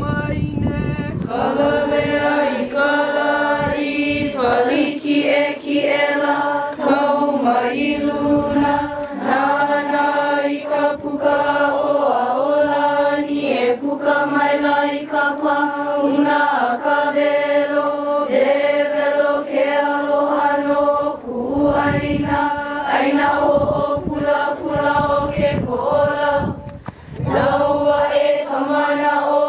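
Hawaiian chant (oli) by young voices in unison, each phrase held on one steady pitch with short breaks for breath between phrases.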